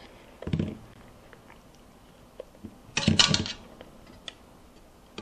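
Silicone spatula scraping sticky marshmallow fluff off a stand mixer's wire whisk over a steel bowl: two short bursts of scraping, about half a second in and again about three seconds in, with a few faint clicks between.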